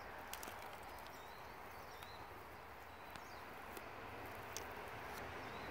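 Quiet outdoor ambience: a faint steady hiss with a few faint bird chirps, about one and a half to two seconds in and again near four seconds, and scattered light clicks.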